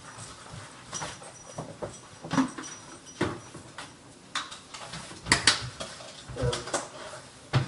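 Scattered light knocks and clicks of dishes being handled, loudest about a third of the way in and again past the middle.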